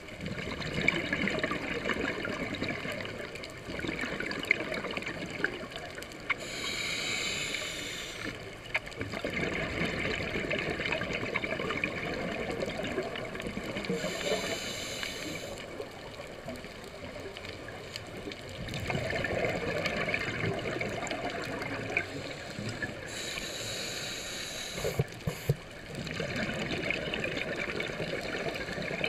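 Scuba diver breathing through a regulator underwater: three short hissing inhales, each followed by several seconds of exhaled bubbles gurgling out.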